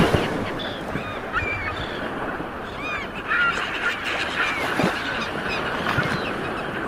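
Steady rush of sea water with many short, high calls from a flock of birds scattered over it, several a second, overlapping.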